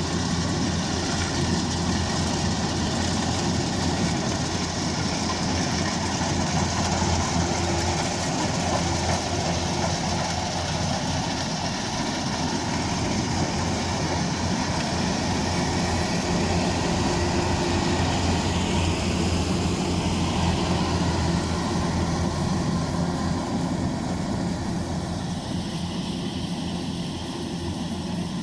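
Kubota DC-105X combine harvester running steadily, its engine and machinery giving a constant, even drone with a low hum. It eases off slightly near the end.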